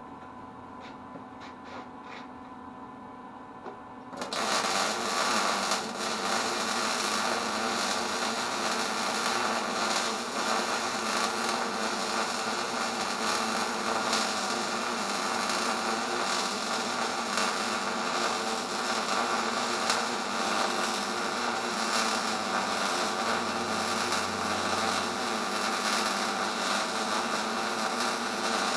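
Low hum with a few faint clicks, then about four seconds in a welding arc strikes and runs on with a steady, dense crackle.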